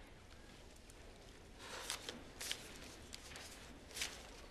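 A stack of paper envelopes rustling as it is flipped through by hand: a few short, soft rustles, the clearest about two seconds in and near the end.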